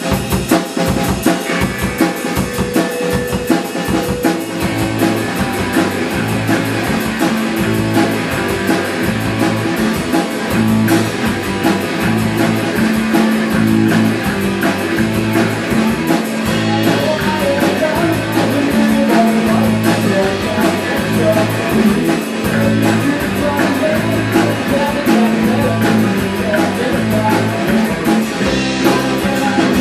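Rock band playing live: a drum kit keeping a steady beat under electric guitars through an amp, with repeating low notes.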